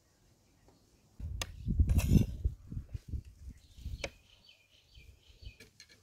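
A metal spoon scraping and clicking on a plastic plate of rice, with muffled low thumps of handling in the first half and one sharp click about four seconds in.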